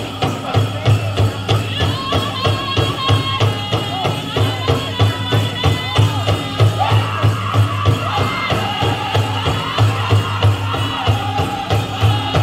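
A powwow drum group singing a chicken dance song: several voices singing in unison over a large drum struck in a steady, even beat.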